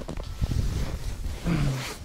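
Low rumbling wind and handling noise on the microphone, with a short hummed voice sound near the end.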